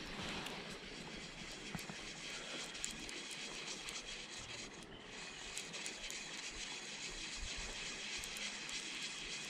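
Water of a small, shallow stream running steadily close by, with a few faint ticks and splashes from a hand held down in the current.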